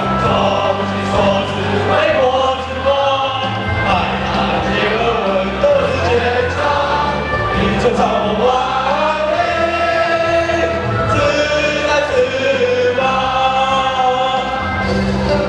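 A choir of students singing a school song together, over a steady accompaniment holding low chords.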